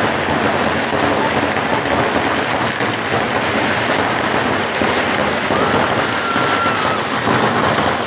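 Fireworks and firecrackers crackling densely and continuously, a steady rapid patter of small pops with no single big bang standing out.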